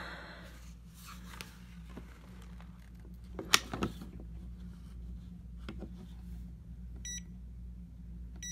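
AstroAI digital clamp meter giving two short electronic beeps about a second and a half apart near the end, as its buttons are pressed, after a sharp click from handling the meter a few seconds in. A steady low hum runs underneath.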